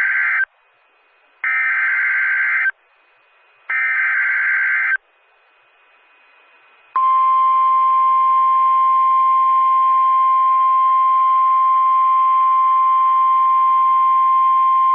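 Emergency Alert System SAME header: three bursts of warbling digital data tones, each about a second long with short gaps between them. About seven seconds in, the steady 1050 Hz NOAA Weather Radio warning alarm tone starts; it announces a new severe thunderstorm warning.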